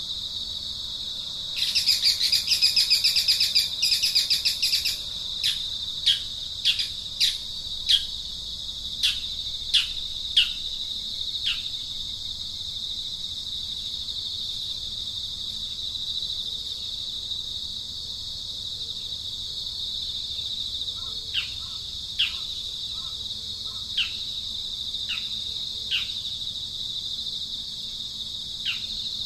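Insects droning steadily on one high pitch, with a loud rapid rasping burst a couple of seconds in. Over it a bird calls in short downward-sweeping chirps, first in a quick run and then again more sparsely near the end.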